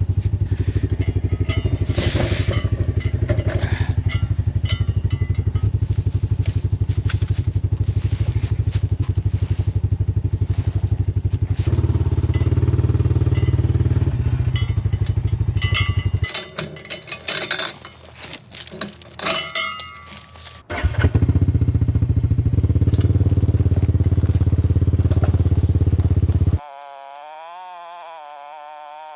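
Side-by-side utility vehicle's engine running steadily, dropping out for a few seconds past the middle with scattered knocks and clanks, then coming back. Near the end it cuts off abruptly to background music with a wavering tone.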